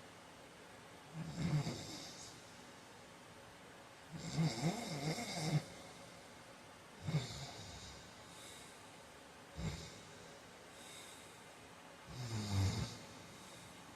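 A man snoring in his sleep: five snores about every two to three seconds, each a low rattle with breathy hiss. The one about four seconds in is the longest, lasting over a second, and the one near ten seconds is short.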